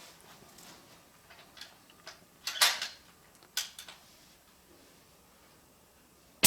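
A few sharp clicks and knocks, the loudest about two and a half seconds in and another about a second later, then a rifle shot goes off right at the very end.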